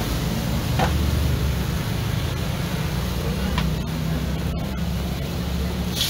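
Wok frying over a gas burner, with a steady rumble and sizzle. A metal spatula scrapes the wok twice. At the very end a burst of sizzle comes as shredded cabbage is thrown into the hot wok.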